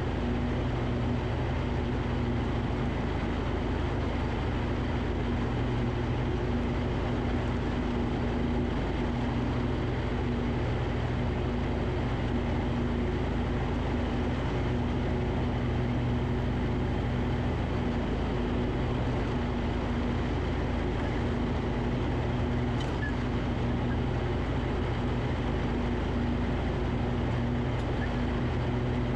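Riding lawn tractor's gas engine running steadily under load while mowing, with the mower deck's spinning blades.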